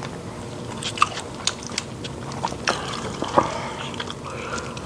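Eating at close range: metal spoons clink and scrape against a bowl of rice, a few sharp ringing clinks among them, with chewing and mouth sounds.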